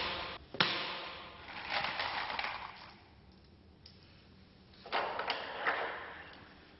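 A series of sharp knocks and clatters, each with a short ringing tail: one about half a second in, a run of them around two seconds in, and another run near five seconds in.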